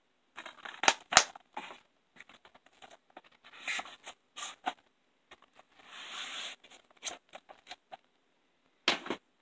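Hands handling DVD packaging: scattered sharp plastic clicks and taps, with brief scraping and rustling as items are slid and moved, and two louder clicks about a second in and near the end.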